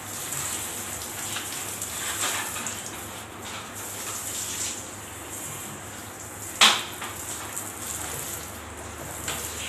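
Water from a handheld toilet sprayer hissing and splashing over a toilet as it is scrubbed. One sharp knock comes about two-thirds of the way through.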